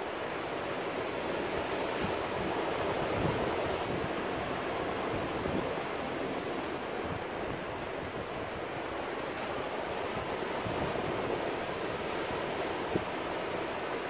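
Sea surf breaking and washing around rocks, a steady rush of white water that swells gently now and then, with no single big crash.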